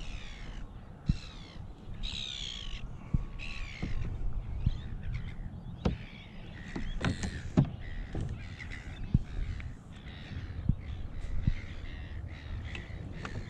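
A crow-like bird cawing four times in the first four seconds, with fainter calls after. Sharp knocks and clicks are scattered throughout and are the loudest sounds.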